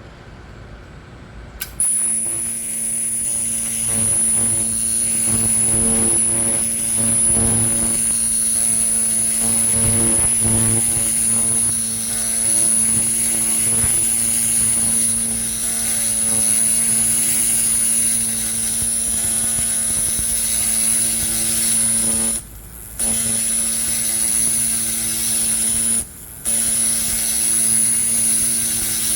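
A 300-watt pulsed laser cleaner firing as it strips rust from a metal bell, its scan head sweeping a straight line. It makes a steady buzz with a high whine above it, starting about two seconds in and cutting out twice for about half a second near the end.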